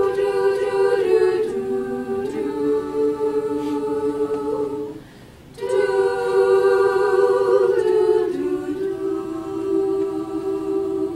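Women's choir singing a cappella in held chords, in two long phrases with a short break about five seconds in.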